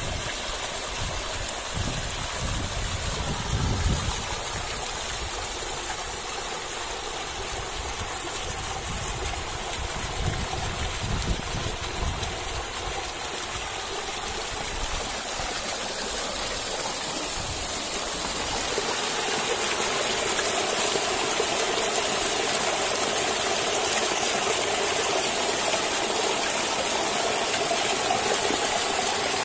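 Water from a waterfall running low in the dry season, pouring and splashing as a steady rush. It grows louder and fuller about two-thirds of the way through. Low buffeting of wind on the microphone is heard in the first part.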